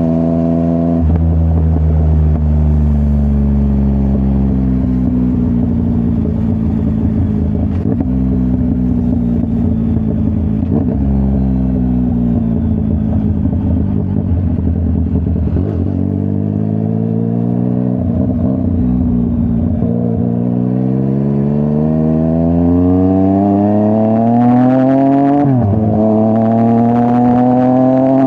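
Yamaha MT-09's CP3 three-cylinder engine through a full Akrapovic exhaust, heard from the rider's seat. The engine note falls slowly and rises again as the bike slows and speeds up, then climbs steadily near the end, with a sudden brief dip at each of two quick gear changes.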